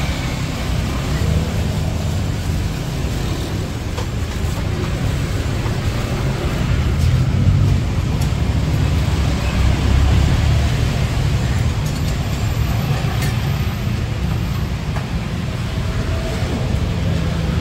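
Steady low rumble of outdoor background noise, with faint indistinct voices in the mix.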